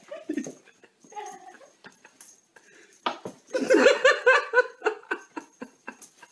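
A person laughing in a quick run of short repeated laughs about halfway through, among scattered light clicks and taps.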